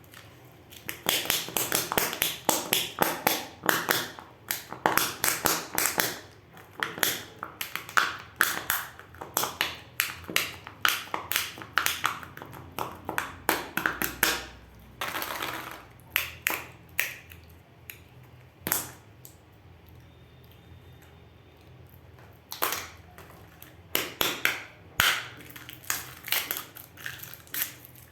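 Candy surprise-egg wrappers crinkling and crackling in quick close runs as they are handled and torn open by hand. The runs stop for a few seconds past the middle, then start again.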